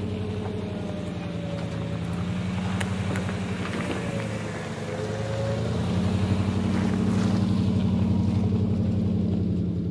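Chevrolet Silverado pickup's engine running under light load as the truck drives up a gravel track and past, a steady low exhaust note that grows louder in the second half and drops away abruptly at the end.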